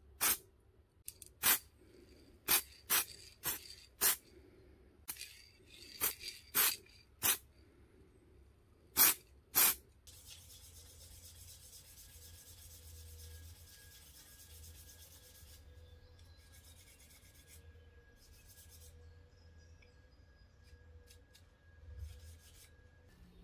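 Hand work on the metal parts of an old Stanley utility knife: about fourteen short, sharp rasping strokes, as of a file or abrasive on metal, over the first ten seconds. Then comes a steady hiss lasting about five seconds, followed by a few shorter hisses.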